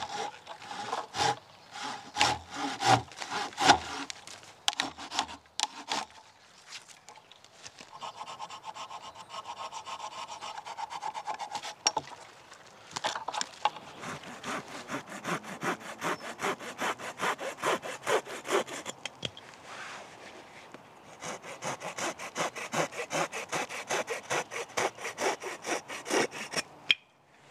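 Hand saw cutting through thin sapling stems and sticks for firewood, in bouts of quick back-and-forth strokes with short pauses between cuts. A few heavier knocks come in the first few seconds.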